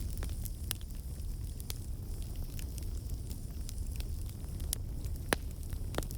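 Campfire burning with a steady low rumble and irregular crackles and pops of burning wood, the sharpest pop about five seconds in.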